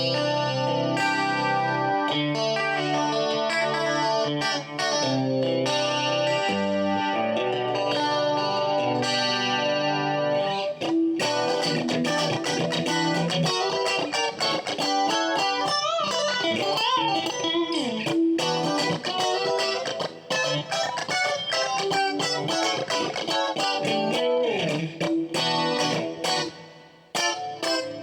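Cruiser by Crafter Strat-style electric guitar played with a clean tone: ringing chords and picked notes at first, then from about eleven seconds in a faster single-note lead with bent notes.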